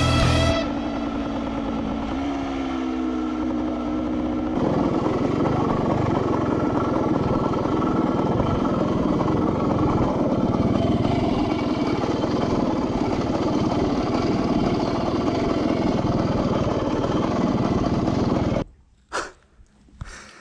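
1972 Ossa Pioneer 250's two-stroke single-cylinder engine running on the road, getting louder about four seconds in. It cuts off suddenly near the end.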